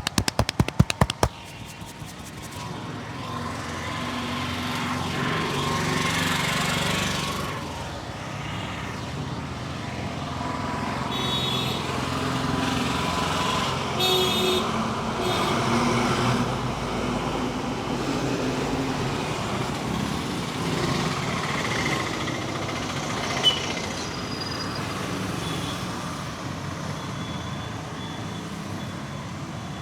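Street traffic: vehicle engines passing in a steady rumble that swells and fades, with a few brief high tones. In the first second or so, a fast run of sharp taps from hand-chopping strokes of a head massage.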